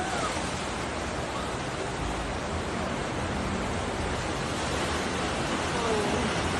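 Heavy downpour: a steady, even rush of rain.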